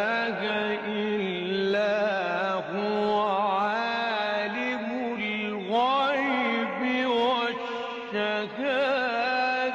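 A man's voice in melodic Quran recitation (tilawat), drawing out long ornamented notes with wavering trills and a sweeping rise in pitch about six seconds in.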